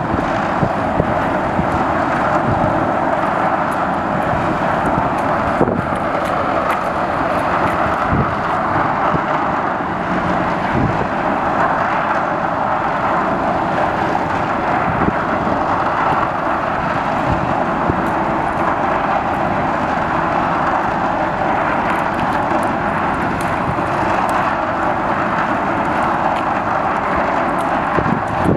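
Steady roar of a large car ferry's engines running at the berth, an even noise with a low rumble beneath it.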